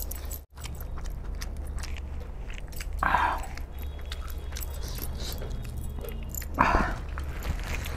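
Close-miked eating: wet chewing and mouth smacks, with the squelch of a hand mixing chicken curry and rice. Two louder wet smacks come about three and seven seconds in.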